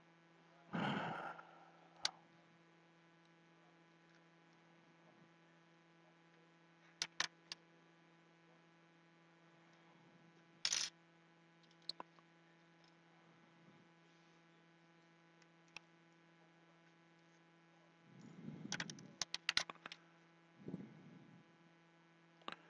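Faint, steady mains hum with scattered small clicks and taps of a small screwdriver and phone parts being handled on a workbench. A brief rustle comes about a second in, and a busier cluster of clicks and rustling comes near the end.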